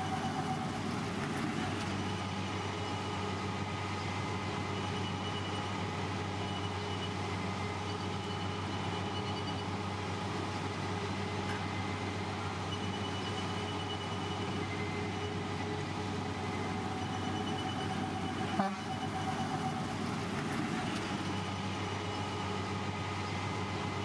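Heavy diesel road-construction machinery running steadily with a low engine drone, with a brief click about two-thirds of the way through.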